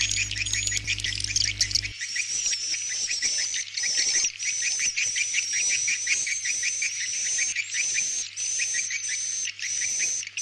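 Swiftlet roosting lure recording ('suara inap'): a dense run of rapid chirps and twitters over a steady high trill, played back continuously. A low hum under the calls stops about two seconds in, where the recording changes.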